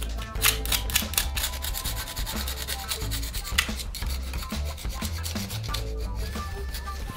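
Old wax-ring residue being scraped and rubbed off a toilet flange: a quick, irregular run of rough scraping strokes, over background music.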